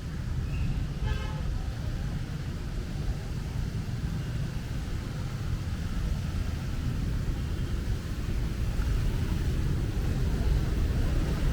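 Steady rain with a low rumble of road traffic passing on the bridge. A short horn-like toot sounds about a second in.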